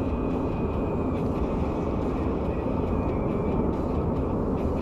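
Steady road and tyre noise with engine hum inside a car cruising at highway speed, as heard from the cabin.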